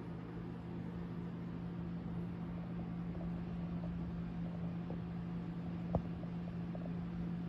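Steady low mechanical hum over a soft even hiss, with one small click about six seconds in.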